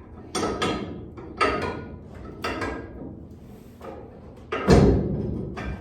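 Steel suspension parts clanking and knocking as a four-link lower bar, its spacers and the through-bolt are worked into the subframe-connector pocket. About half a dozen sharp metallic knocks, the loudest a heavy thump near the end.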